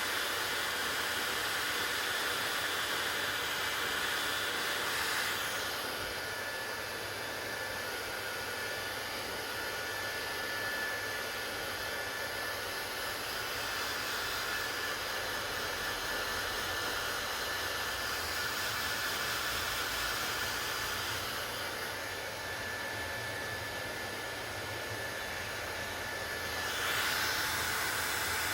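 Hair dryer running steadily: a constant rush of blown air with a faint high motor whine. The tone of the air shifts a little about five seconds in, again past the twenty-second mark, and near the end.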